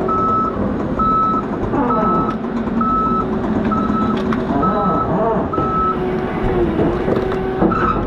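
Heavy logging machine's diesel engine running under load, its pitch rising and falling as the hydraulics work, with a backup alarm beeping about once a second.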